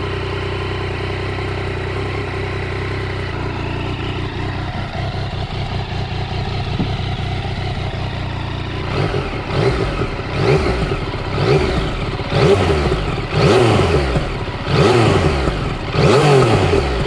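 Yamaha XSR900 inline three-cylinder engine, heard with the exhaust it had before the MIVV system was fitted. It idles steadily, then from about nine seconds in it is blipped again and again, each rev rising and falling, the later ones louder.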